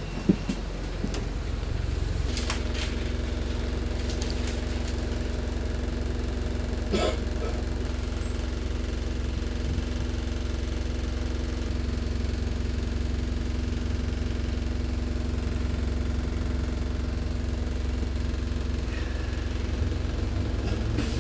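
Wright StreetDeck double-decker bus's diesel engine running steadily, heard from inside on the upper deck: a low hum with a steady drone setting in about two seconds in. A few brief knocks or rattles, the loudest about seven seconds in.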